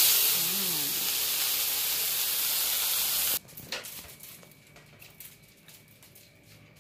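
Sesame-coated cream dory fillet frying in hot olive oil in a nonstick pan: a loud, steady sizzle that cuts off suddenly about three and a half seconds in, followed by faint scattered clicks.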